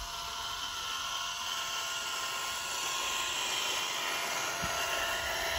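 Handmade miniature Massey Ferguson 385 model tractor's small motor whining steadily at a high pitch as it drives through sand.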